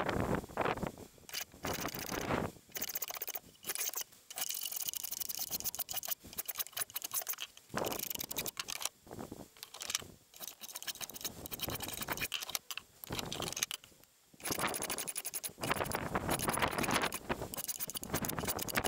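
Spokeshave shaving a curved wooden table leg: a run of scraping cutting strokes, a second or two each, with short pauses between them.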